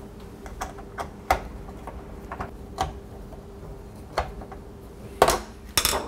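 Screwdriver driving small screws into the plastic needle assembly of a Keurig K10 brew head: scattered light clicks and ticks of metal on plastic, with a couple of louder knocks near the end.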